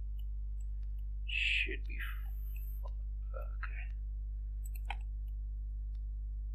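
Computer keyboard and mouse clicks over a steady low electrical hum on the microphone, with a short breathy vocal sound about a second and a half in.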